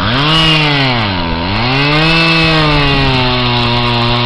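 Two-stroke chainsaw engine running at high speed. Its pitch sags and recovers twice, then holds steady.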